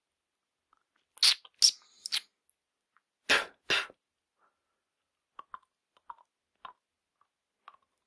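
Wet mouth sounds of fingers rubbing and cleaning the teeth: three short loud bursts a little after a second in, two more in the middle, then a few faint wet clicks and smacks.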